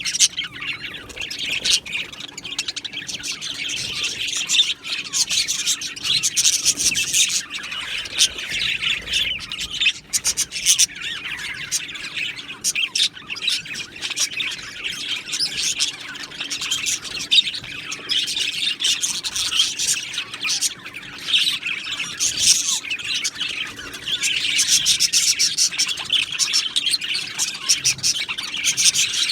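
A flock of budgerigars in an aviary chattering and chirping continuously, many high warbling calls and squawks overlapping.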